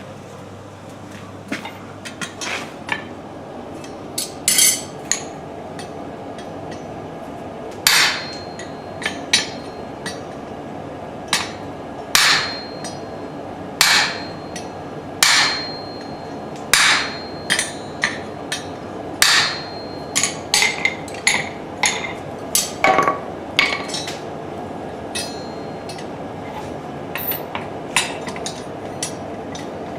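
Hand hammer striking stainless steel on an anvil: a few light taps at first, then heavy blows about every second and a half, each leaving a short metallic ring, turning to quicker, lighter taps in the last third. A steady hiss runs underneath.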